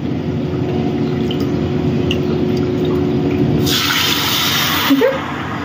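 Half a cup of water poured from a plastic measuring cup onto granulated sugar in a non-stick pan to start a sugar syrup. The pour begins a little under four seconds in and lasts about a second, over a steady low hum.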